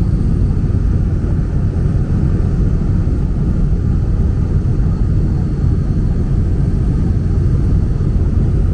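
Steady drone of a small propeller plane's engine, heard from inside the cabin in flight.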